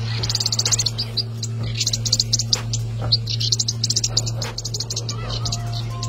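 High-pitched chirping in rapid trills that come in short bursts again and again, over a steady low hum.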